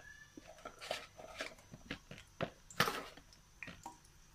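Oil crackling with irregular sharp pops around batter-coated potato fries just put into a steel pan to fry.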